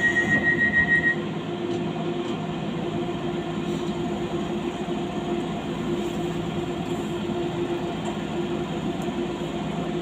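Docklands Light Railway train running, heard from on board: a steady electric hum over the rumble of wheels on the track. A steady high tone stops about a second in.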